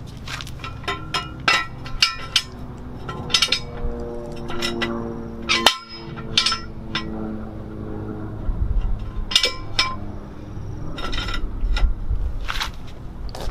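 Scattered sharp metallic clicks and clinks of car-repair work with a floor jack and hand tools, with a brief pitched squeal near the middle and a low rumble in the second half.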